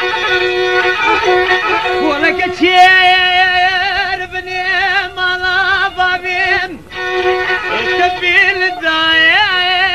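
Instrumental passage of a song: a violin plays a melody of long held notes with a wide vibrato, its phrases broken by brief gaps.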